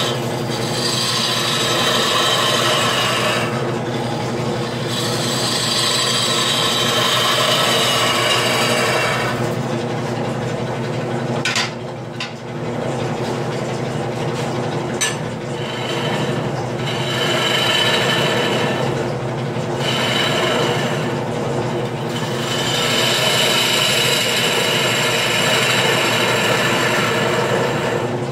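Wood lathe running steadily while a turning tool cuts into a spinning wet mulberry bowl blank, roughing it out. The cutting sounds as a scraping hiss over the motor hum in several passes with short pauses between. The longest pause comes about a third of the way in and holds two sharp clicks.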